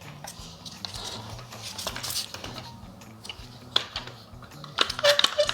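Metal hand tools and hinge parts clicking and clinking as they are handled and lined up, with a quick run of clicks near the end.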